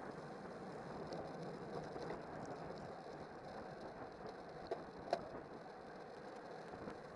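Steady rush of wind over a road bike's handlebar-mounted camera microphone, mixed with the hum of the tyres on asphalt while riding at race pace. Two short sharp clicks sound about five seconds in.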